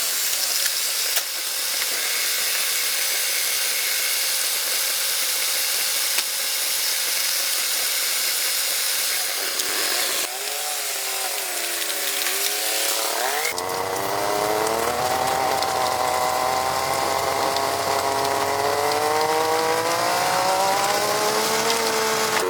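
A motor running with a strong hiss, then from a little past halfway a steadier whine over a low rumble, its pitch slowly rising.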